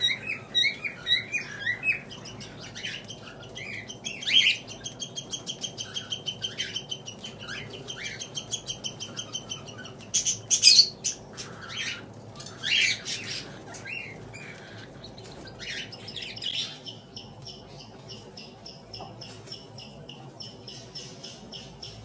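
Cockatiel chicks begging while being fed: runs of rapid, evenly pulsed high calls, about five to six a second, broken by two loud harsh squawks around the middle.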